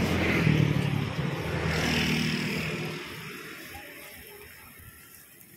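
A motor vehicle driving past on the street, its engine loud for the first three seconds and then fading away.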